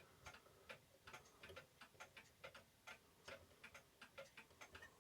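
Faint, steady ticking of a mechanical clock, about three ticks a second.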